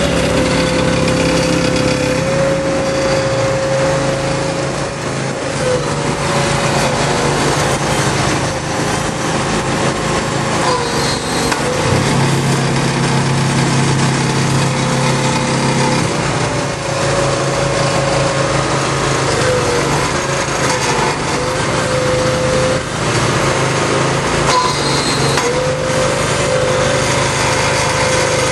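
Engine-driven compressed earth block machines running: a steady engine drone with a whine that dips in pitch briefly every few seconds.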